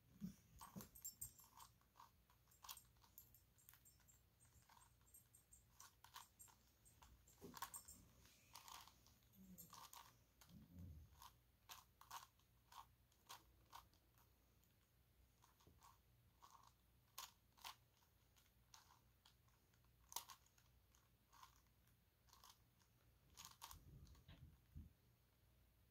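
Faint, irregular plastic clicking of a 5x5 dodecahedron puzzle (a Gigaminx) being turned by hand, a few clicks a second with short pauses between bursts of turns.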